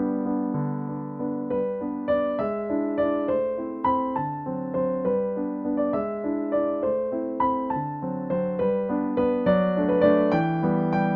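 Soft background piano music, a gentle melody of single notes and chords each struck and left to fade.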